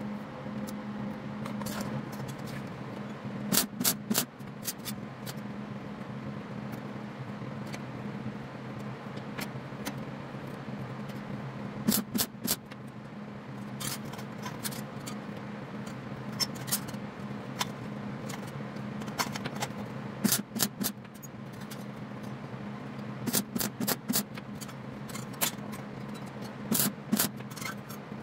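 Thin sheet-steel leaves and rod stems of a wrought-metal piece clinking and jangling against each other as it is handled, in short clusters of sharp clinks every few seconds. A steady low hum runs underneath.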